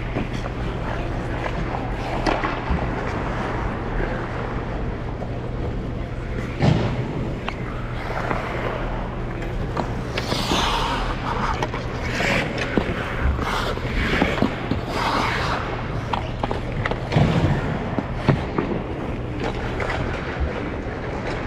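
Ice skates gliding and scraping on rink ice over a steady low hum. There is a run of louder, higher scraping sounds in the middle and two low thuds, one about a third of the way in and one near the end.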